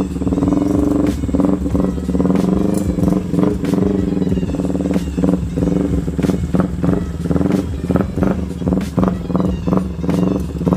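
Engine of a modified Yamaha Vixion, a 150 cc single-cylinder four-stroke contest bike, running as it is ridden slowly on a short test ride, its level surging up and down many times. The clutch has just been repaired and no longer catches.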